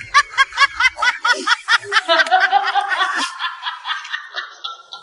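High-pitched laughing: a quick run of short pulses, about five a second, for about three seconds, then trailing off.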